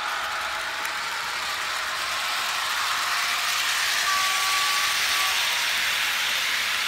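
HO-scale model train running on the layout: a steady hiss of the Corail coaches' wheels rolling on the track, mixed with the CC 72074 locomotive's LokSound sound decoder playing diesel engine sound. A faint steady tone comes in about four seconds in and lasts about a second.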